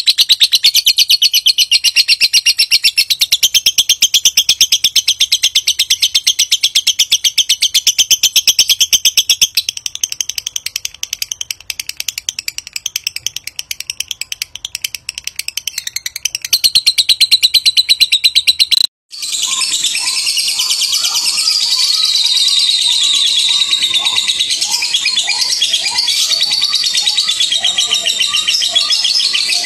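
Lovebird ngekek: a long, rapid, evenly pulsed high chattering trill that runs unbroken for about nineteen seconds and cuts off abruptly. After a brief silence, another lovebird chatters continuously, its high trill mixed with lower, repeated rising chirps.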